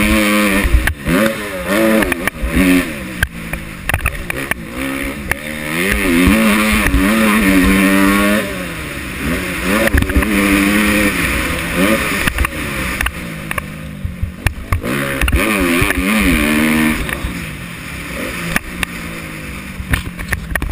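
Motocross dirt bike engine being ridden hard, its pitch rising and falling again and again as the throttle opens and closes and it shifts gears, with short knocks from the bike over the rough track.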